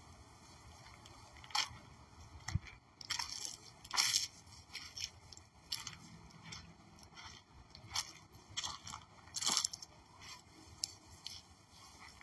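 Dry leaf litter crunching and crackling in short, irregular crackles, the loudest about four seconds in and again at about nine and a half seconds, with a dull thump at about two and a half seconds.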